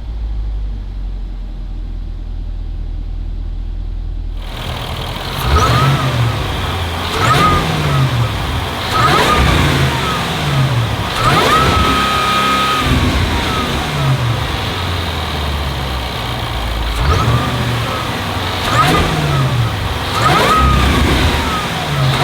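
Supercharged 5.0-litre V8 exhaust of a Land Rover Defender 110, a steady low rumble for the first few seconds. It then changes to a string of quick revs, about one every two seconds, each rising and falling back.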